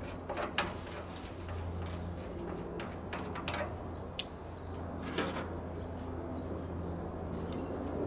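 A steady low hum with a few faint scattered clicks and taps.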